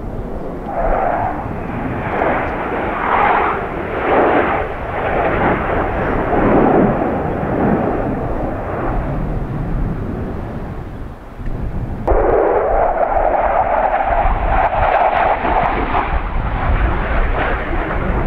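Jet engine noise from USAF Thunderbirds F-16 Fighting Falcons in flight, swelling and fading in waves as the four-ship formation flies over. About two-thirds in it cuts abruptly to a steadier, loud jet noise as a single F-16 passes.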